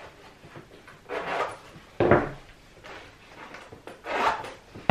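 Silver cowboy boots being pulled on: scuffing and rubbing sounds, with a sudden heel knock on the wooden floor about two seconds in and another scuff near the end.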